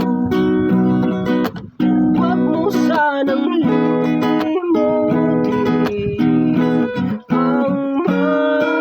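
Music: acoustic guitar, strummed and plucked, with a couple of brief breaks.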